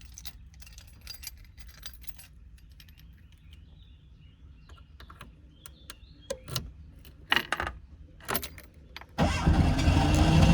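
Keys jangling with scattered clicks and rattles, then about nine seconds in the 1985 Fiat Panda 30's air-cooled 652 cc two-cylinder engine starts abruptly and runs loudly and steadily.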